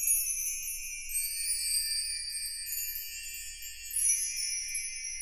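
Edited-in chime sound effect: a continuous run of high, tinkling bell-like tones with nothing low in it.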